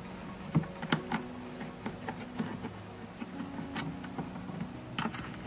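Flat-blade screwdriver prying plastic retaining clips out of a car's windshield cowl trim: a few light clicks and snaps, the clearest about half a second and a second in, over a faint steady buzzing hum.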